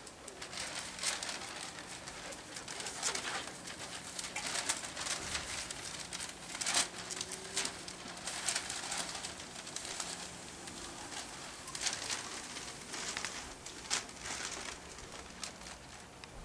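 Dogs scuffling in play on a floor cushion: a string of short rustles and clicks, loudest about seven seconds in, over a faint low hum.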